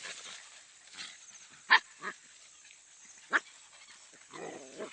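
A dog barking: two short, sharp barks about a second and a half apart, with a fainter bark just after the first.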